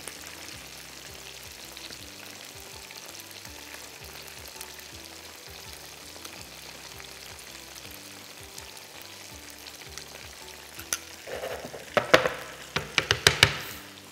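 Breaded chicken fingers frying in sunflower oil with a steady sizzle. A run of sharp clicks and knocks comes near the end, over faint background music.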